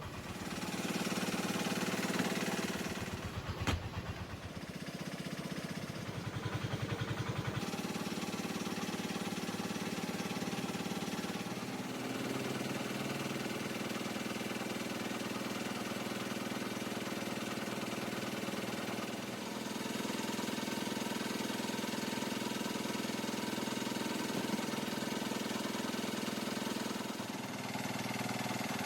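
A motor or engine running steadily: an even hum with a fine, rapid pulse.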